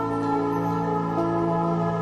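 Ambient background music of long, held chords: the show's break bumper, which marks the segment break.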